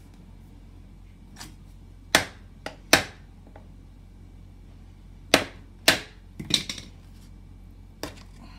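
Hammer tapping a flathead screwdriver to drive its blade under the axle lock cap of a stroller wheel so the cap can be pried off. About eight sharp knocks, the loudest two about two and three seconds in, a cluster from about five to seven seconds in, and one near the end.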